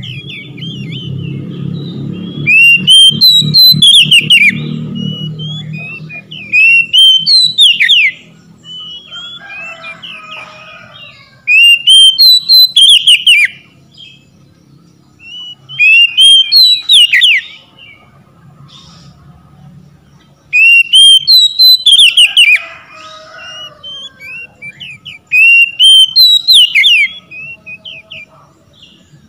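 Oriental magpie-robin singing in repeated bouts of loud, whistled phrases of notes that sweep up and down, each bout a second or two long with short pauses between.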